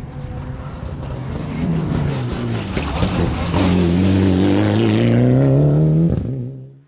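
Mitsubishi Lancer Evolution VI rally car's turbocharged four-cylinder engine at full throttle, growing louder as the car approaches, its pitch rising under acceleration. A short crack comes just before the sound cuts off suddenly near the end.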